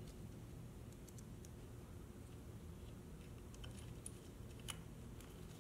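Faint, scattered light clicks of a small tool and bolt being worked at the shock reservoir's clamp, with one sharper click late on, as a small clamp bolt is fitted.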